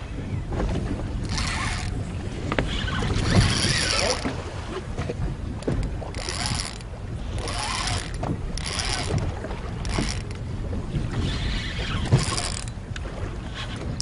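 Spinning reel whirring in repeated short bursts, about a second each, as a hooked fish is played and the line wound in on a bent rod. Under it runs a steady low rumble of wind and water around the boat.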